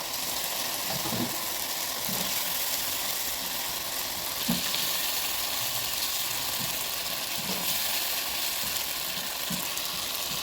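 Fried liver and tomatoes sizzling steadily in a pan while being stirred, with soft knocks of the spoon every second or two.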